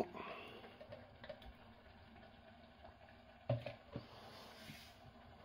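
A spoon faintly scraping and scooping yogurt into flour in a stainless steel mixing bowl. About three and a half seconds in there is a soft knock, followed by a couple of light clicks.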